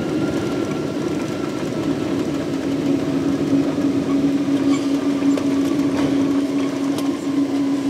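Boeing 777-200 cabin noise heard from a window seat behind the wing as the jet slows on the runway after landing: a steady rumble of engines and airflow, with a low steady hum settling in about two seconds in.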